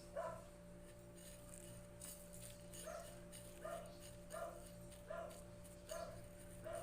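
A dog barking faintly and repeatedly: about seven short barks, one at the start and then a run of six evenly spaced under a second apart, over a steady low hum.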